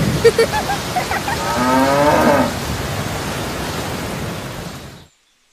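Steady rain with a cow mooing once, one call about a second long in the middle; the rain fades out near the end.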